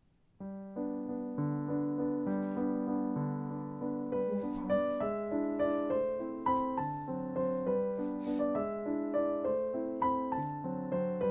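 Background piano music, a gentle melody of struck notes over a steady accompaniment, starting about half a second in.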